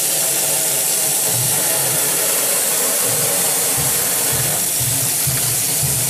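Utility sink faucet running at full flow under strong water pressure, the stream spattering into the basin with a steady, loud rush.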